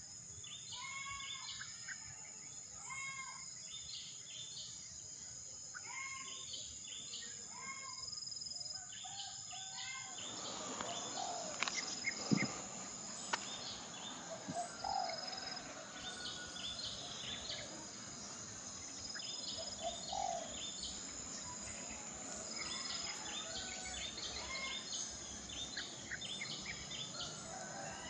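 Outdoor chorus of short, repeated bird chirps over a steady, high-pitched insect drone. About a third of the way in the background changes abruptly and the chirps turn lower, with a few sharp knocks in between.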